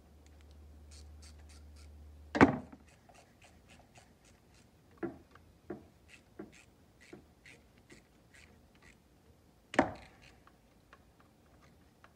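Hand-tool work on worm drive hose clamps in an engine bay: two sharp knocks, a few softer knocks, and runs of light rapid ticking between them as the clamps are fitted and tightened.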